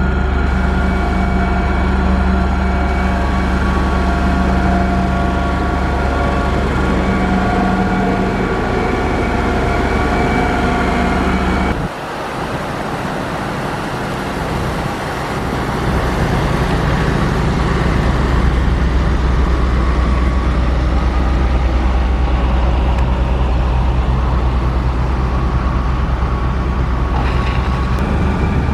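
Heavy diesel engine of a motor grader running steadily under work. The sound changes abruptly about twelve seconds in, turning quieter, then runs louder again from about sixteen seconds.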